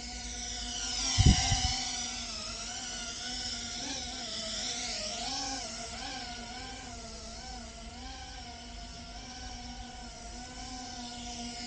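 GEPRC Phantom FPV quadcopter's small brushless motors and propellers whining, the pitch wavering up and down with throttle as it flies low. A short knock a little over a second in.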